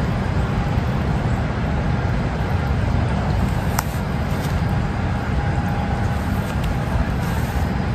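Steady low outdoor rumble with no clear single source, and one faint click a little before the middle.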